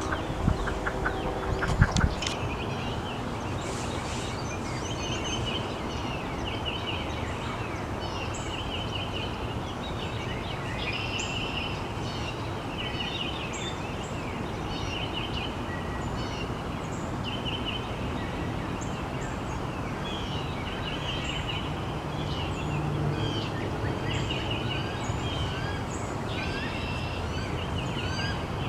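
Outdoor wildlife chorus: many short, repeated trills and, near the end, a run of rising chirps, over a steady background hiss. A few sharp knocks sound in the first two seconds.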